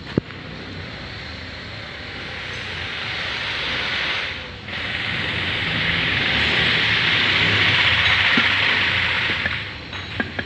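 Long hissing jet, swelling over the first four seconds, cut off for about half a second, then going again for about five seconds before dying away. A sharp click near the start and a few light metallic clinks near the end.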